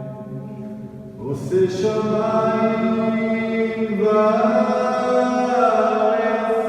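A voice chanting slowly in long held notes, moving to a new note a little over a second in and again about four seconds in.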